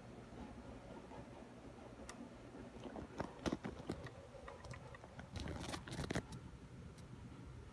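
Handling noise from gloved hands and a phone moving around the wiring: scattered light clicks and a brief rustling burst a little past five seconds in, over a low steady hum.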